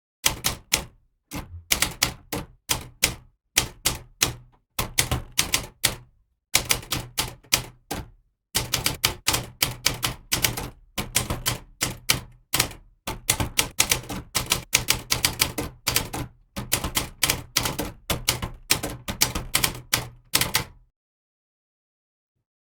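Manual typewriter typing: quick runs of sharp key strikes with short pauses between them, stopping about two seconds before the end.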